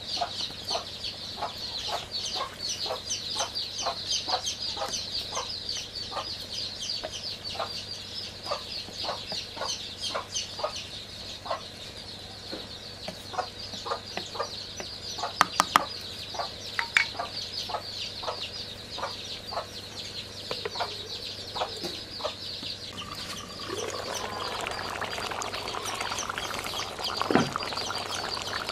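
Domestic hens clucking in a steady run, about two or three clucks a second, over a continuous high chirping. A few sharp taps come about halfway through, and the simmering curry bubbles in the pot near the end.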